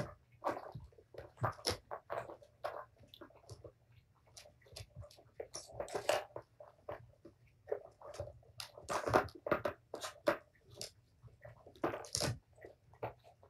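Irregular plastic clicking and clattering from kittens batting the balls around a Tower of Tracks toy, with quick pauses between the bursts.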